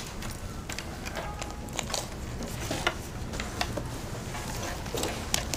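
Scattered rustles, clicks and light knocks of school bags and belongings being picked up and handled as students pack up.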